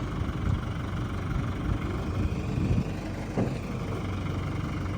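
Machinery engine running steadily at a low, even pitch, with a few louder swells and a short sharp sound about three and a half seconds in.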